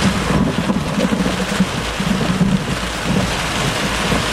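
Heavy rain falling steadily, with a low, uneven rumble of thunder from a nearby lightning flash underneath it.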